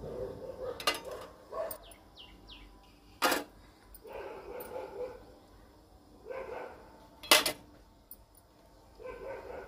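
Small steel tiffin lids full of rice batter set down one by one onto a perforated aluminium steamer plate: three sharp metal clinks, the loudest near the end.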